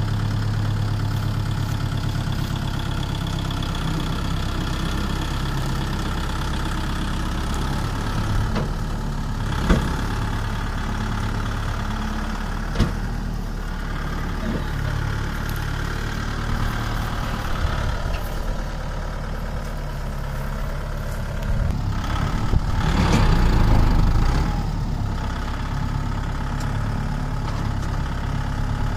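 Kubota MU5501 tractor's four-cylinder diesel engine running steadily while it reverses a loaded trolley. Two short sharp knocks come about a third of the way in, and the engine grows louder for a couple of seconds about three-quarters of the way through.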